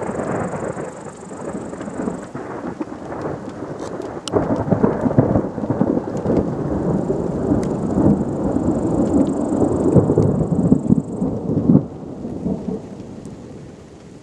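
Long rolling thunder rumbling from a storm, swelling about four seconds in and dying away near the end.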